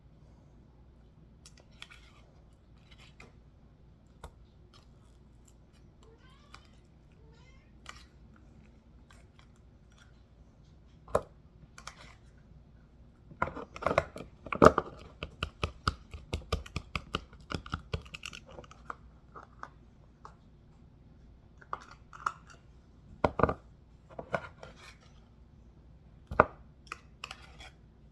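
Clicks and knocks of food-preparation handling on a kitchen counter. They are scattered at first, then form a dense, rapid run about halfway through, with a few louder knocks later on.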